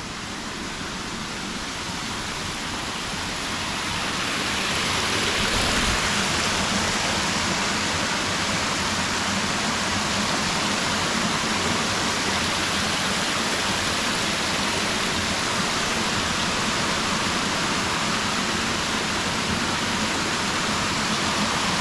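Creek water rushing and splashing over sandstone ledges and small cascades at the top of a waterfall. It is a steady rushing sound that grows louder over the first few seconds and then holds even.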